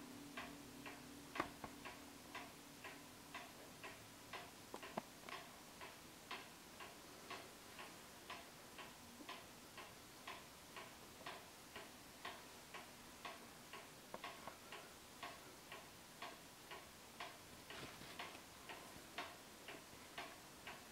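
Johann Baptist Beha clock's mechanical movement ticking faintly and steadily, about two ticks a second.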